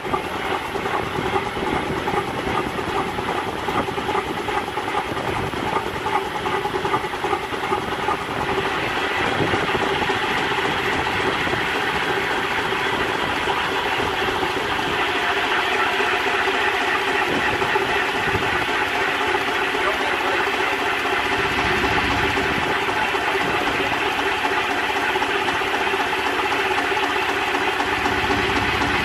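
7¼-inch gauge Tinkerbell live-steam locomotive in steam on a workshop stand: a steady rush and hiss of steam with rapid clattering, a little louder from about eight seconds in.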